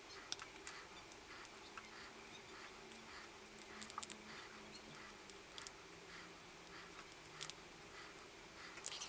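Faint, scattered small clicks and ticks as four-pin tactile push-button switches are pressed into the holes of a small printed circuit board and handled between the fingers.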